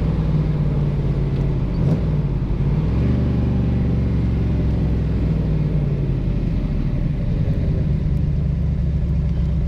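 Ford small-block V8 of a Factory Five Shelby Cobra replica running under way, heard from the open cockpit with road and wind noise. The engine note changes about three seconds in, and there is one short knock near two seconds in.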